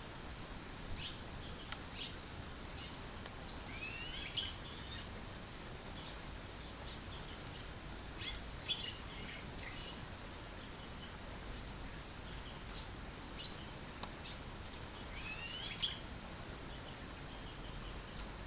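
Red-rumped swallow singing: short phrases of chirps and rising glides, in three spells with pauses between them, over steady background hiss.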